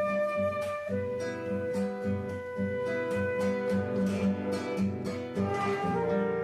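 Live Argentine folk music: an acoustic guitar keeping a steady plucked rhythm under a long held melody line.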